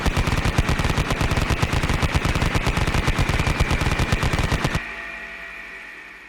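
Vulcan rotary machine gun firing one long continuous burst of very rapid shots over a steady high whine. The firing stops abruptly about five seconds in, and the whine carries on alone, fading out.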